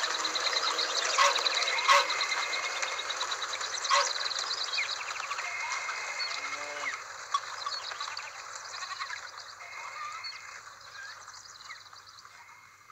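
Busy breakfast-room ambience with a few sharp clinks of tableware and short high chirping sounds, fading steadily away toward the end.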